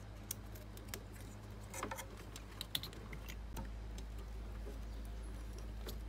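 Small irregular clicks and rattles of plastic wire connectors and a starter relay being handled and pushed onto a refrigerator compressor's terminals, with a cluster of clicks about two seconds in. A low steady hum runs underneath.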